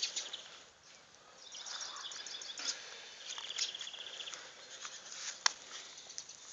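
A dog digging in loose garden soil with its front paws and muzzle, a run of scratching and rustling scrapes in the dirt, with one sharp click about five and a half seconds in.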